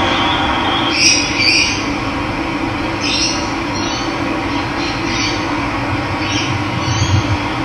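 Steady rush of running water, with a bird giving short repeated calls over it, about seven in all.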